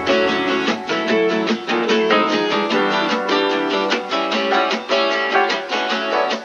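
Background music: a plucked guitar picking quick notes, with no drums.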